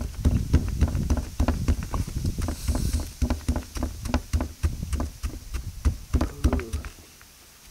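Wooden pestle pounding chilies into a paste in a stone mortar: a steady run of dull thuds and knocks, about three to four strokes a second, stopping near the end.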